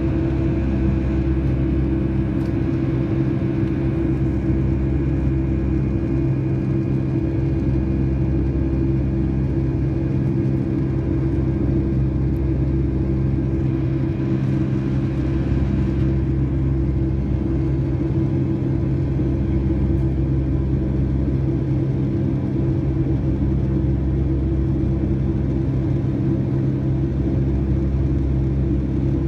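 Boeing 757-200 cabin noise during climb-out: the engines and rushing air make a steady low rumble with an even hum over it, heard from a window seat beside the wing and engine.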